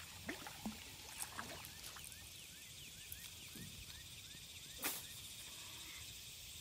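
Spinning rod and reel being worked from a small boat, with a single sharp snap about five seconds in as the rod is swung out. A run of short, faint chirps, about four a second, sounds in the middle.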